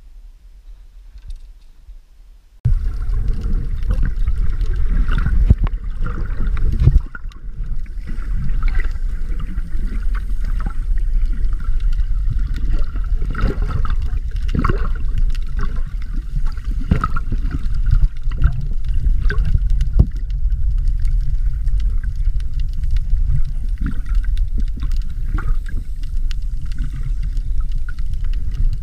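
Underwater sound picked up by an action camera in its housing: a loud low rumble of moving water with gurgles and scattered sharp clicks. It starts abruptly about three seconds in, after a few seconds of quiet.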